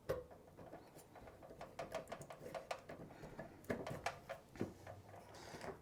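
Faint, irregular clicks and taps of small parts being handled.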